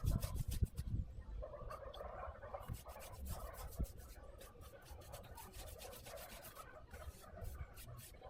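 A paintbrush scrubbing rust primer onto rusty metal: a soft, irregular rubbing and scratching, with a few low knocks in the first second.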